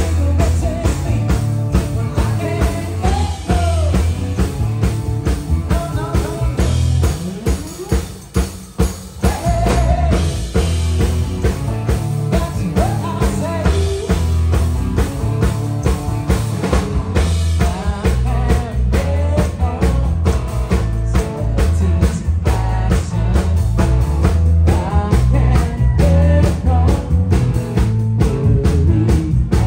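Live rock-and-roll band playing: drum kit keeping a steady beat under strummed guitar and singing, with a brief drop in the music about eight seconds in.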